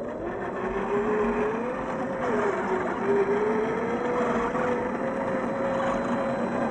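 Electric drivetrain of a 1/10-scale MST CFX RC crawler, its RC4WD 20-turn brushed motor and gears whining as it drives over ice. The whine dips and rises with the throttle in the first few seconds, then holds nearly steady, over a hiss of tyres on the ice.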